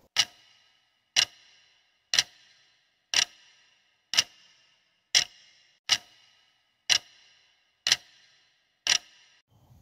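Clock-tick sound effect marking a countdown timer: ten sharp ticks about one a second, each with a short ring.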